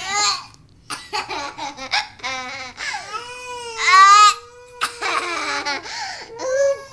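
Baby-like voice laughing and babbling in a string of short giggles, with one long high call about three seconds in that is the loudest part.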